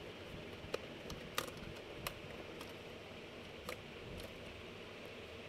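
Faint, scattered clicks and light taps of an SSD and the laptop's drive bay being handled as the SSD is fitted in place of the old hard drive.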